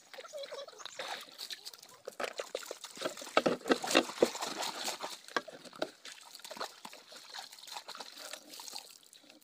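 Water sloshing and splashing in irregular bursts as the water pump's perforated suction strainer box and pipe are handled at the water's edge. It is loudest a few seconds in.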